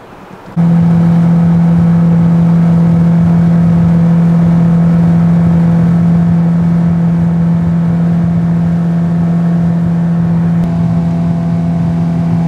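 Outboard motor running steadily with the boat under way: an even hum that starts abruptly about half a second in and holds at one pitch, shifting slightly near the end.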